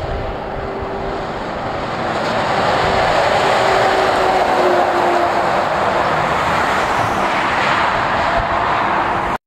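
Heavy truck, a Scania tractor unit with a loader crane pulling a flatbed trailer, driving past on a road bridge: engine and tyre noise build from about two seconds in and are loudest as it passes, with a low engine tone that dips slightly in pitch. Other road traffic follows, and the sound cuts off abruptly at the very end.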